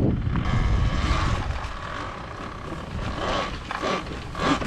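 Electric dirt bike riding over rough ground: wind rumbling on the microphone, with a steady faint high whine over it.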